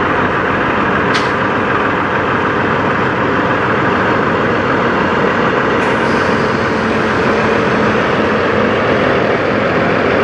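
Diesel engine of a Peterbilt semi tractor running steadily as the rig pulls slowly past, with a short tick about a second in and a hiss that starts about six seconds in and fades.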